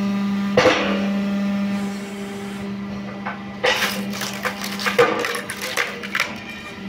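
Firewood splitting machine's motor running with a steady hum, while wood knocks and clatters against it: one sharp knock about half a second in, then a quick run of knocks and cracks between about four and six seconds as a log is loaded onto the machine.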